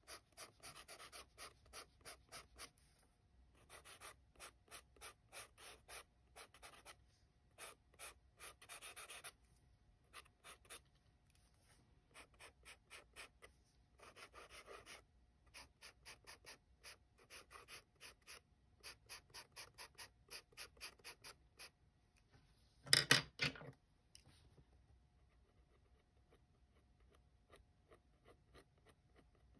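Pencil shading on paper: runs of quick, short, evenly repeated strokes, several a second, with pauses between runs. About three quarters of the way through there is one louder brief scrape or knock, after which the strokes turn faint.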